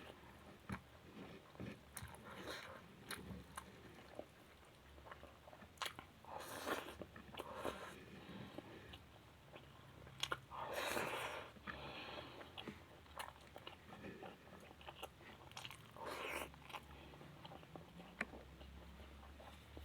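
A person chewing and biting food close to the microphone, with wet mouth sounds, crunches and small clicks, and a few louder stretches of chewing.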